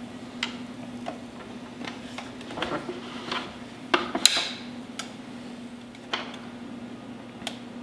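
A rotating flip waffle maker being closed on the batter and turned over: scattered plastic-and-metal clicks and knocks, with a louder clank about four seconds in. A steady low hum runs beneath.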